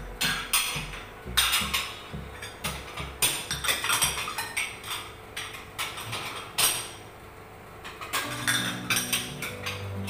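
White plates clinking and knocking irregularly as they are set one by one into a plastic dish rack, with a quieter stretch about seven seconds in. Low background music plays underneath.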